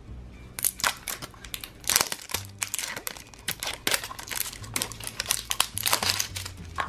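Clear plastic shrink-wrap sleeve being torn and peeled off a plastic toy capsule: a dense run of sharp crinkling and crackling that starts about half a second in.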